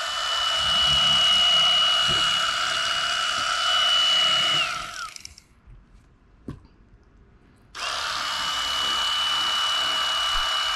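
Corded electric fillet knife running with a steady high whine as it saws through a speckled trout along the backbone. It winds down and stops about five seconds in, then starts again a few seconds later and keeps cutting.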